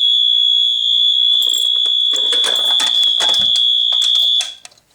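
The Radio Shack buzzer of a homemade 12-volt fire alarm panel sounds one continuous high-pitched tone, set off by a pulled Simplex pull station. It cuts off suddenly about four and a half seconds in when the system is silenced, with clicks of handling under its second half.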